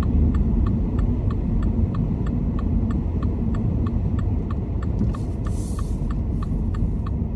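A car's turn-signal indicator ticking steadily, about three clicks a second, over the low running noise of the engine and tyres heard from inside the cabin, the engine pulling slowly in second gear. A brief hiss about five seconds in.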